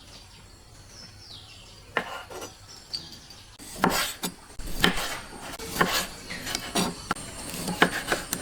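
Irregular clicks and knocks of hard objects being handled and set down, a few at first and then coming thick and fast from about three and a half seconds in. A bird chirps faintly near the start.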